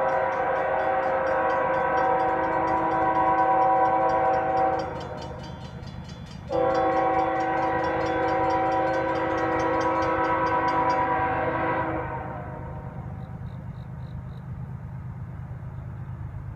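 Locomotive air horn of a CSX coal train sounding two long blasts, each several notes at once, with a short break about five seconds in. Beneath the horn runs a steady low rumble from the oncoming train.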